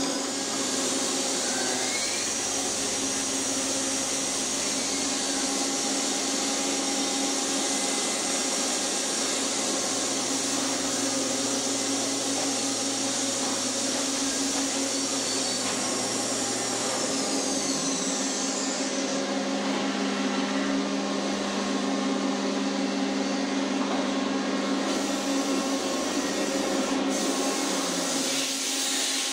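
Machinery running steadily: a continuous whir with a low hum and a high whine. About seventeen seconds in, the whine slides down in pitch and the hum shifts to a different note.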